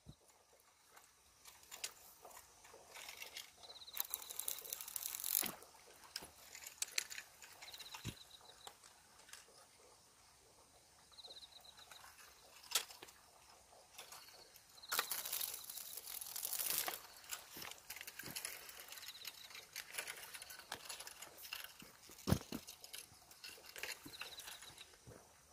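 Quiet outdoor ambience by the water: short high chirps every few seconds, two longer stretches of hissy rustling, and a few sharp clicks.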